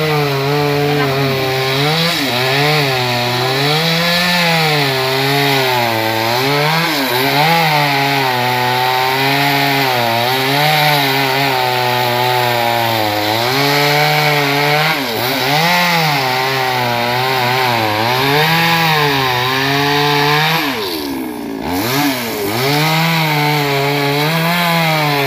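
Two-stroke chainsaw cutting a large teak trunk, its engine pitch dipping and recovering again and again as the chain bites into the wood. Near the end it bogs down sharply, then picks back up.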